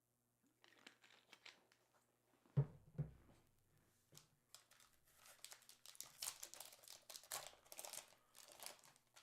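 Trading-card pack wrappers crinkling and tearing open, quiet and growing busier from about halfway through, with two low thumps about two and a half seconds in.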